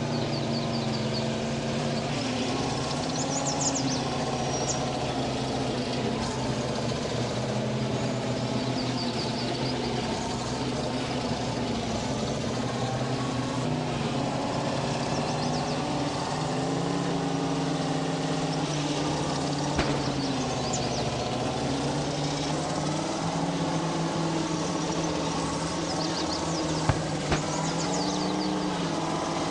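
GAZ vehicle engine running steadily, its pitch drifting slightly up and down, with faint high chirps now and then and a few sharp knocks near the end.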